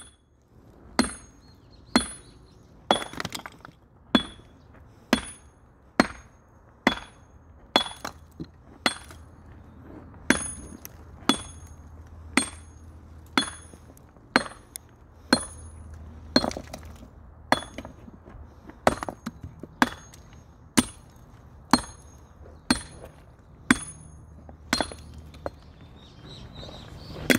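Hand hammer striking a steel chisel set against a volcanic basalt boulder to trim it, about once a second. Each blow is a sharp metallic clink with a brief high ring.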